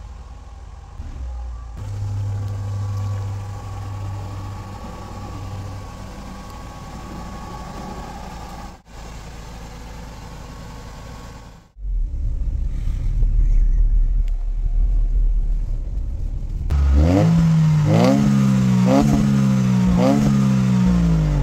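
Mercedes SLK230's supercharged M111 four-cylinder engine running steadily, then idling loudly at the exhaust and, from about two-thirds in, revved in quick blips about once a second, each rising and falling. It now revs freely on the throttle, with its limp-mode and idle-hunting fault fixed.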